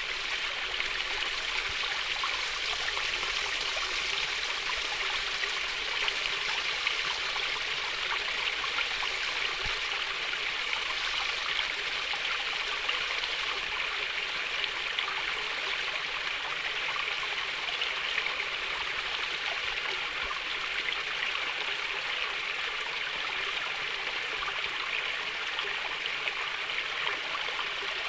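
A stream of water flowing and gently trickling, a steady babble of splashing water.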